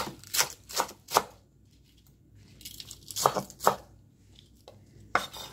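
Kitchen knife slicing a green onion (Korean daepa) on a wooden cutting board in sharp single strokes: four in quick succession at the start, a pause, two more about three seconds in, and one near the end.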